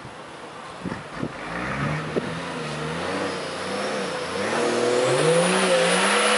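Toyota Land Cruiser 70 engine revving up and down as the truck drives through mud toward the microphone. The pitch rises and falls with the throttle and the engine grows steadily louder, loudest in the last second or so.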